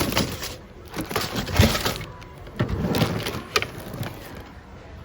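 Hard mixed objects clattering and knocking together as hands rummage through a full thrift-store bin, in several irregular bursts.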